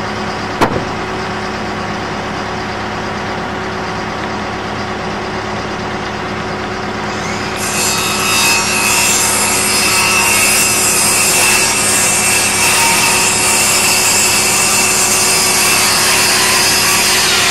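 Circular saw cutting through the wooden tail of a gable truss to trim it to length. The cut starts suddenly about halfway through and runs on to the end. Under it a machine engine idles steadily, and there is one sharp click near the start.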